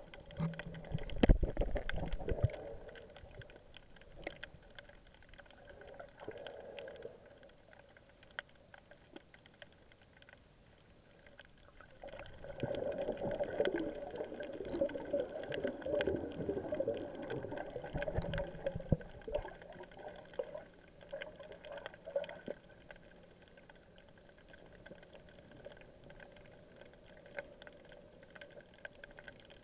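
Muffled underwater sound heard through an action camera's waterproof housing, with faint clicks throughout. Bubbling, churning water from a swimmer's movements comes in a short loud burst about a second in and again in a longer stretch from about twelve to nineteen seconds in.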